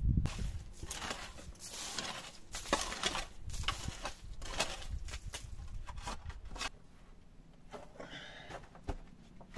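A small metal shovel scraping and digging into loose gravel and dirt on a rocky floor, with stones clicking and clattering as they are pushed aside. The scraping stops about two-thirds of the way through, and it is quieter after that.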